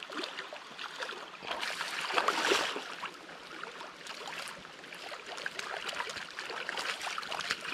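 A hooked chinook salmon thrashing and splashing in shallow river water over the steady run of the river, with the loudest splashing about two seconds in.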